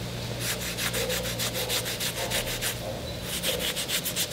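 Damp cloth rubbed briskly back and forth over glued wood, wiping off the excess glue. It makes a quick rasping rhythm of about six strokes a second, with a short pause about three seconds in.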